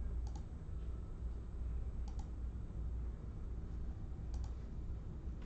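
Sharp computer clicks in quick pairs, three times about two seconds apart, over a steady low hum.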